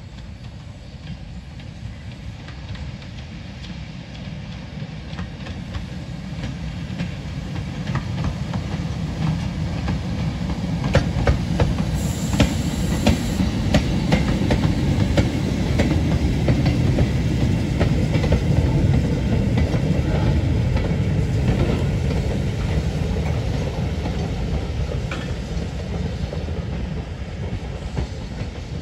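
Stroudley A1X Terrier steam tank engine and its short goods train rolling slowly past: a low rumble of wheels on rail with clicks over the rail joints, building as the engine passes about halfway through, then easing as the wagons and brake van go by.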